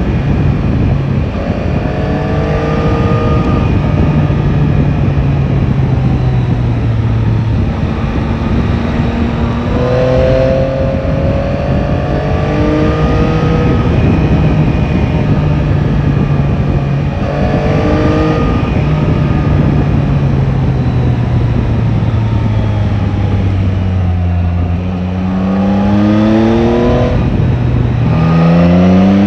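Yamaha Tracer 9 GT's inline-three engine pulling the bike along, its pitch rising and falling with the throttle several times and climbing steeply near the end as it accelerates hard, over a steady rush of wind.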